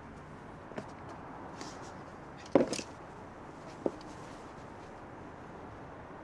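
Faint steady background hiss with a few small knocks and clicks of movement, the loudest a single knock about two and a half seconds in.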